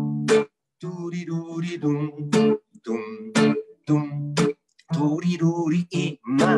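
Acoustic guitar strumming a rhythmic chord pattern as the introduction to a song. The chords are struck sharply and damped short, leaving brief silences between strokes.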